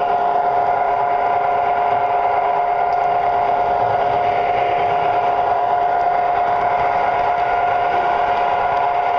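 Tinplate model train running steadily on its track, its small electric motor and wheels making a continuous whine with a strong steady tone, heard up close from on board the moving train.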